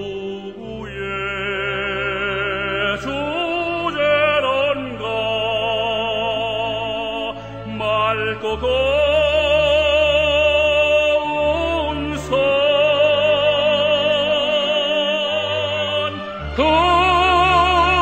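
Slow background music in an operatic style: long held melody notes with wide vibrato over sustained low bass notes.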